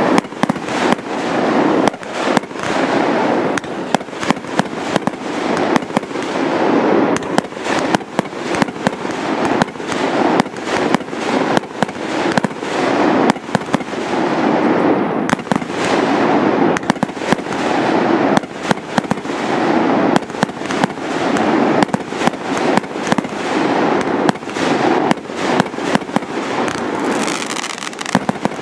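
Fireworks display going off without pause: a dense, irregular string of sharp bangs from firework batteries and aerial shells, over a continuous crackling rush.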